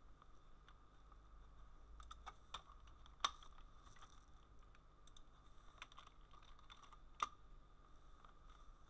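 Computer keyboard keys clicking as a command is typed: a scattered run of soft keystrokes with two sharper key strikes, about three seconds in and about seven seconds in, over a faint steady hum.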